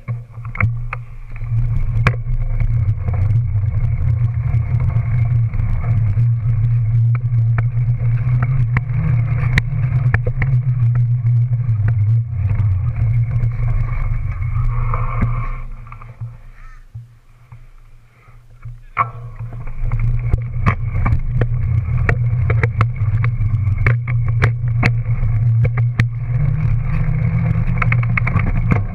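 Riding noise from a camera mounted on the back of a dual-suspension mountain bike: wind buffeting the microphone and the rear knobby tyre rumbling on pavement, with frequent small knocks and rattles over bumps. It dies down for a few seconds past the middle, then comes back as strongly as before.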